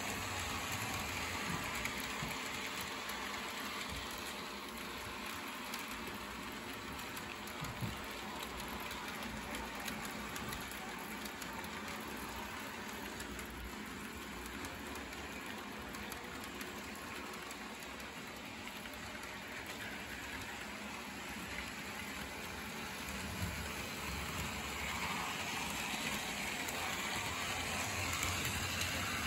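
HO-scale model trains running on the layout's track, a Life-Like ATSF Dockside 0-4-0 steam engine with boxcars and a CSX diesel freight: a steady rolling noise of small wheels on the rails, with a few faint clicks.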